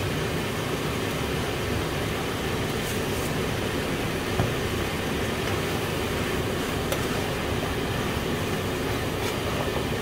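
Chicken pieces sizzling in a frying pan, a steady frying noise with a few faint crackles and a small knock about halfway through, while a wooden spatula stirs them.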